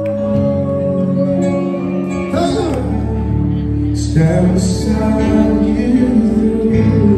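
A male singer sings live into a microphone over a band of keyboard and guitar, amplified through PA speakers. A long held note runs into a new sung phrase about two seconds in.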